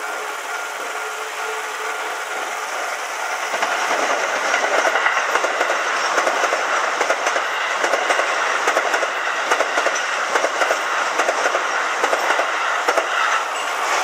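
Keio Line electric commuter train passing over a level crossing, its wheels clicking rapidly over the rail joints. It comes up about four seconds in and drops away just before the end.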